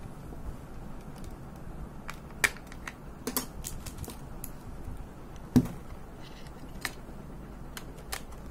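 Plastic body of an Olympus AZ-230 Superzoom compact film camera being handled, giving a handful of scattered clicks and light knocks, the loudest about five and a half seconds in, as its battery compartment is opened.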